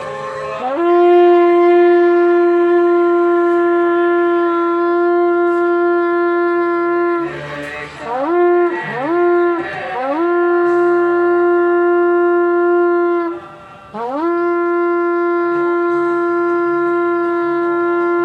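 A shofar blown in long, steady blasts, each starting with an upward slide into the note, with a quick run of three short blasts about eight seconds in and two more long blasts after them. It is sounded to welcome the new year.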